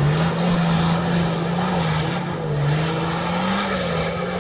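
Off-road 4x4's engine running with a steady drone that wavers in pitch, rising briefly a little after three seconds in.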